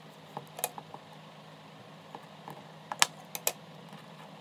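Irregular small clicks and taps from hands wrapping electrical tape around wire joints, about eight in all and loudest around three seconds in, over a faint steady low hum.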